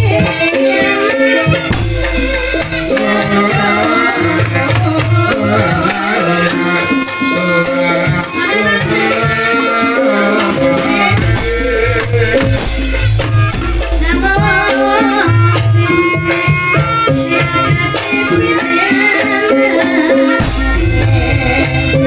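Live Javanese gamelan music (gending Jawa) of the Banyumas style: metallophones playing a stepped melody over deep gong strokes and drumming, with rattling percussion.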